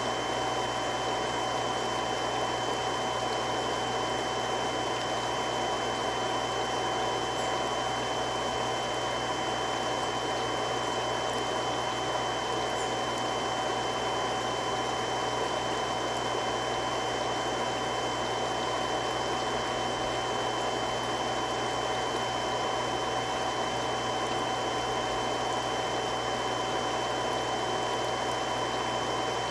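Three-stage irrigation water pump running steadily: an even rushing noise with a low hum and a few constant whining tones that never change.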